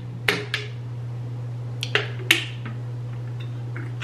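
Close-miked eating sounds: a scattered series of short, sharp clicks and cracks over a steady low hum.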